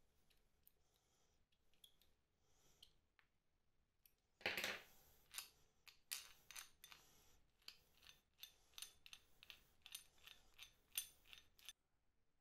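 Quiet metal-on-metal clicks and ticks from the restored Goodell-Pratt breast drill as it is handled and its red crank wheel is turned by hand against the bevel pinions. A sharp clack about four and a half seconds in starts an irregular run of small clicks, two or three a second, which stops shortly before the end.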